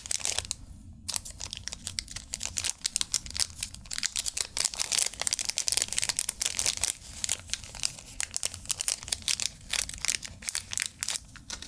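A plastic parts bag crinkling and rustling as it is handled, a dense run of small irregular crackles.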